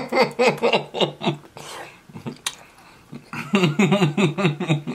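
A person's voice, talking or half-singing in two short runs with a pause between them.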